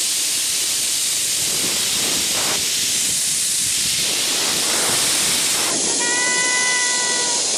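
Loud, steady rush of wind over the microphone and hiss of a trolley running down a zipline cable. About six seconds in, a steady high whine with several tones sets in.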